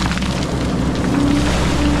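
XCMG 180 hydraulic excavator's diesel engine running steadily, a loud low drone, with a brief higher tone about a second in and again near the end.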